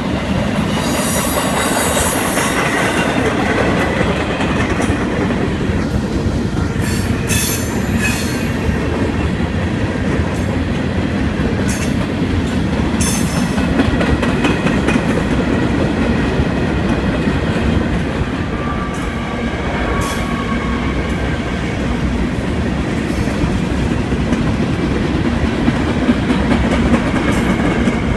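Freight train cars rolling past: a steady rumble of steel wheels on rail, with brief high-pitched wheel squeals now and then.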